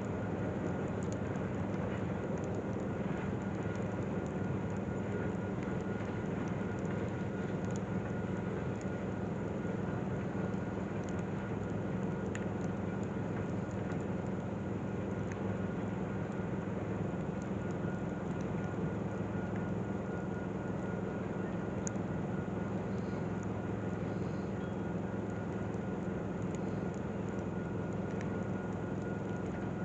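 Steady low engine drone with a faint high whine, unchanging throughout.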